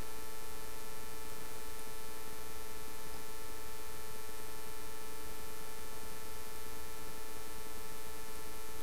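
Steady electrical hum with a buzzing overtone, mains hum picked up by the recording.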